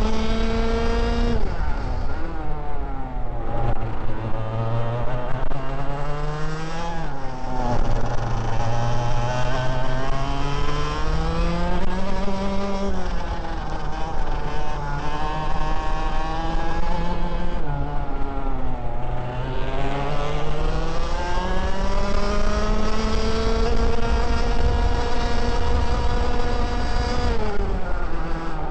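Parilla two-stroke kart engine heard onboard, pulling hard with its pitch climbing steadily. It drops sharply about five times as the driver lifts off for corners, then climbs again.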